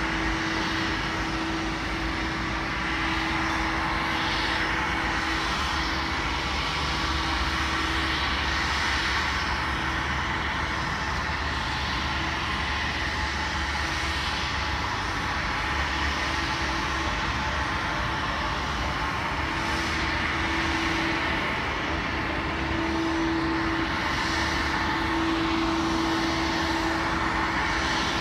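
Jet airliner's engines running steadily at low power as it taxis: an even rush with a steady held hum, growing slightly louder near the end.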